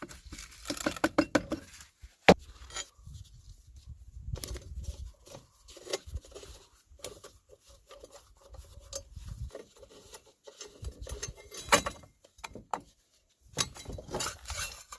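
Gold quartz ore being crushed and worked in a small hand-operated crusher: irregular metallic clinking, rattling and scraping of rock on metal, with sharp knocks about two seconds in and near twelve seconds.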